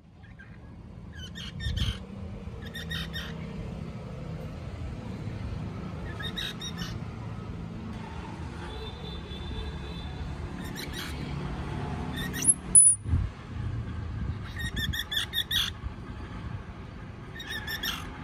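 Baby squirrels squeaking in short clusters of high chirps every one to three seconds, with one rising squeal near the middle. A steady low rumble runs underneath.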